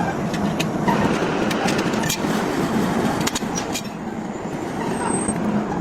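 Heavy workshop machinery running, a steady hum under dense noise with frequent irregular sharp metallic clicks and clinks.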